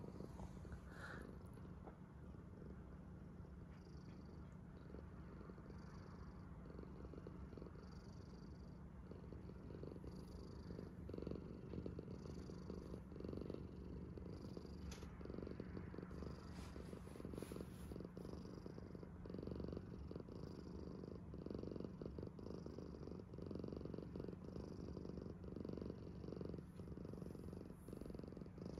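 Domestic cat purring steadily, a low rumble that swells and eases in a slow, even rhythm with each breath.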